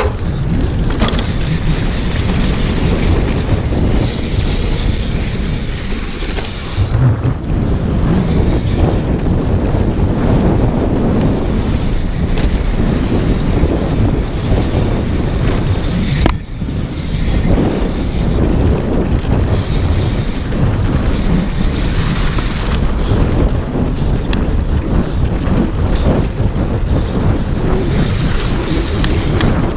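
Wind buffeting the action camera's microphone while a mountain bike descends a dirt trail at speed, the tyres rattling and crunching over loose dirt. The loud rush dips briefly about sixteen seconds in.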